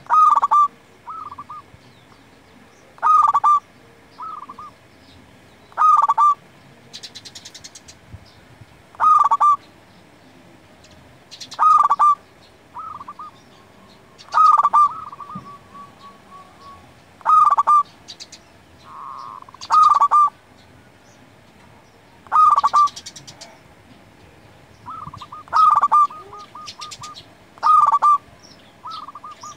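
Zebra dove (perkutut) singing: a loud cooing phrase repeated about every three seconds, eleven times, each phrase a strong note followed by softer quick notes, some trailing off in a rapid stutter.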